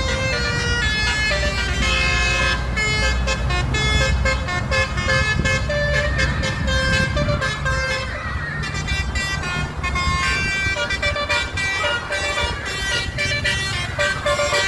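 Basuri telolet multi-tone horn on a bus playing a quick tune of short horn notes that change pitch in steps, over a low vehicle rumble.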